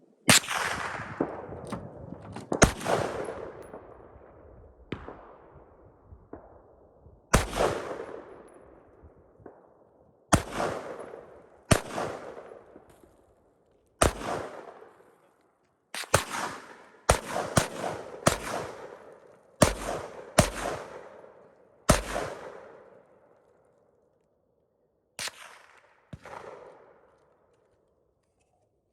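Rifle shots fired one at a time at an irregular pace, about fifteen in all, each with an echo that dies away over a second or two. The shots come faster around the middle, several a second apart, then slow to two last shots near the end.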